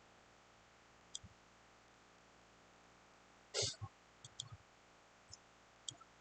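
A handful of short, scattered clicks and soft knocks over a faint steady hiss, the loudest a brief thump about three and a half seconds in.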